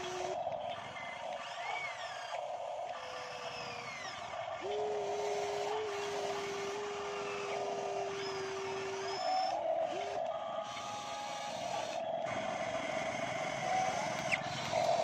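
Whine of radio-controlled model excavators' electric motors working as they dig wet mud, with a steady buzz and a higher tone that drops out and returns at a shifted pitch as the arms move.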